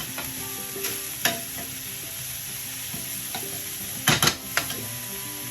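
Vegetables sizzling in a frying pan as they are stirred, with a few sharp knocks of the utensil against the pan, the loudest a quick pair about four seconds in.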